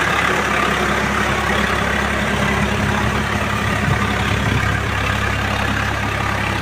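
Swaraj 742 FE tractor's three-cylinder diesel engine running steadily under load as it drives a rotavator tilling a wet, puddled field.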